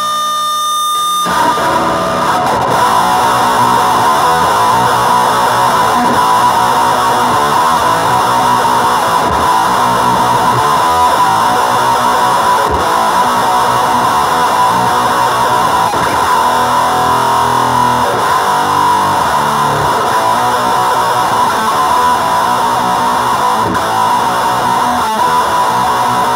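Heavily distorted electric guitar played through effect pedals and out of a Headrush speaker cabinet, a dense, sustained distortion that cuts in about a second in and keeps going.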